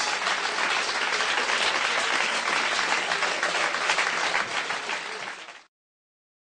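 Live audience applauding, a dense steady clapping that fades and then cuts off abruptly near the end.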